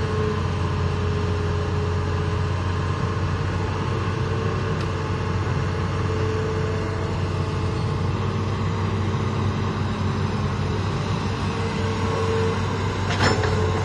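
Hitachi hydraulic excavator's diesel engine running steadily under load as the bucket lifts and swings soil, a low drone with a higher tone over it that swells and fades. A sharp knock about a second before the end.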